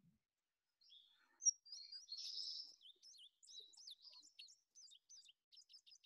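Faint recording of a songbird singing: starting about a second in, a long, rapid run of varied high notes that sweep up and down.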